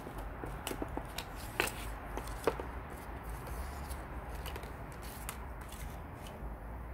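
Paper user-manual card and cardboard box being handled: a scatter of short crisp ticks and rustles, the sharpest about one and a half and two and a half seconds in, over a steady low hum.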